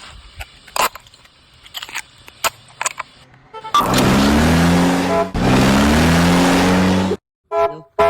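A recorded car engine revving sound effect, played twice in a row about four seconds in, each a loud hissy rush with a rising engine pitch, followed near the end by short honking beeps. Before it, faint clicks and taps.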